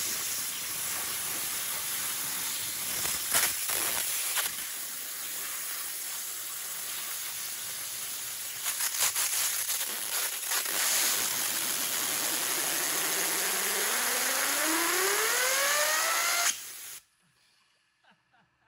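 60,000 psi waterjet blasting with a loud, steady hiss onto the gear train of a water-powered chainsaw, with bursts of clattering in the middle. Near the end a whine rises steadily in pitch as the gears and chain spin up, then the jet cuts off abruptly.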